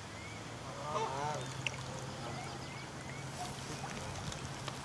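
Geese honking, a quick run of calls about a second in and a few fainter ones later, with small birds chirping and a steady low hum beneath.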